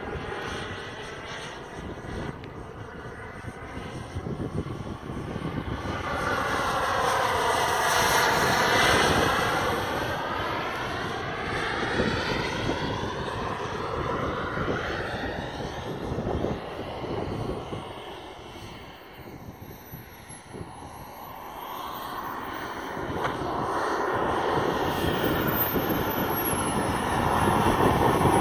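Radio-controlled Saab 37 Viggen model jet flying passes, its jet engine a steady whine with a sweeping, phasing whoosh as it goes by. It is loudest about eight seconds in, fades to its quietest around twenty seconds, then grows loud again as the jet comes in and lands near the end.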